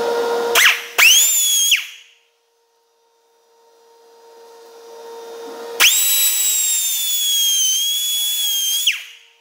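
Pneumatic cutoff tool whining at high pitch: a short spin-up about a second in, then, about six seconds in, a three-second run as its wheel cuts into the cage of a tapered roller differential side bearing, the pitch dipping slightly under the load of the cut.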